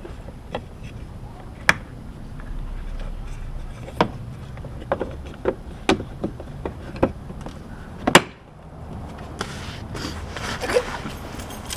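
Plastic clicks and knocks from a car's side marker lamp housing being handled and pushed back into the fender, a dozen or so sharp clicks spread out, the loudest about eight seconds in.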